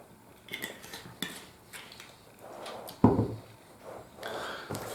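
Light clinks and taps of small hard objects being handled on a table, with one louder knock about three seconds in.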